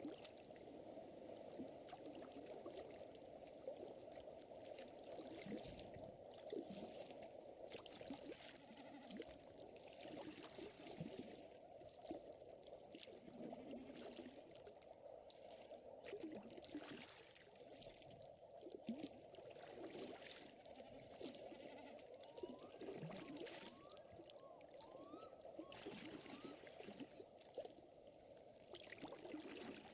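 Faint lakeside ambience: water lapping and trickling in a low, steady wash, with the scattered sharp snaps of a gently crackling wood fire.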